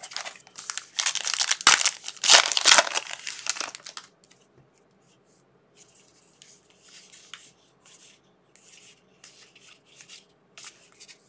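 Trading-card pack wrapper being torn open and crinkled, loud for about four seconds. It is followed by softer rustling and light clicks of cards being handled.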